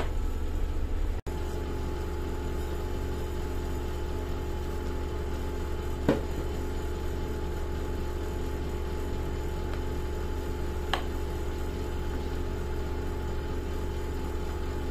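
A steady low machine hum with a faint pulsing tone, and two light clinks of a metal spoon against a ceramic plate, about five seconds apart.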